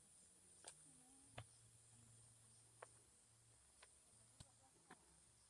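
Near silence with a handful of faint footsteps on a dirt and concrete path, irregularly spaced, over a faint steady high hiss.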